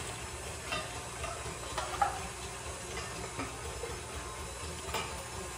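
Electric stand mixer running steadily, whipping in a steel bowl, with a few knocks and clicks over it; the sharpest knock comes about two seconds in.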